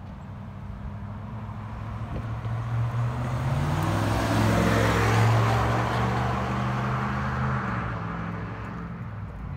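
A 2019+ Ram 1500's 5.7L Hemi V8 with an MRT Version 1 dual stainless cat-back exhaust, driving past. Its exhaust note builds to a peak about five seconds in and then fades as the truck moves off.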